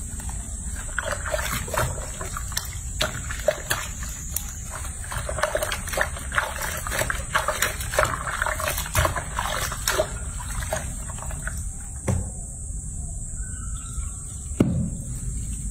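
Soapy water sloshing and splashing in a sink as hands scrub a wet baby monkey, with many small splashes and rubbing sounds. The splashing thins out near the end, broken by two sharper knocks.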